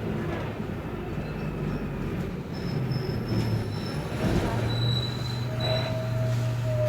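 City bus engine running with a steady low hum, overlaid by several thin high-pitched squeals that come and go, the last and lowest held through the final second or so.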